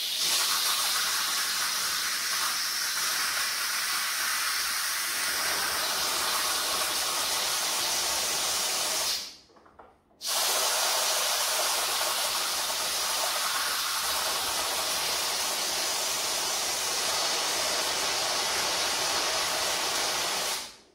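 Steam hissing out of a Philips electric pressure cooker's pressure-release valve, opened by hand to let the pressure down after cooking. The hiss stops for about a second roughly nine seconds in, then starts again and cuts off just before the end.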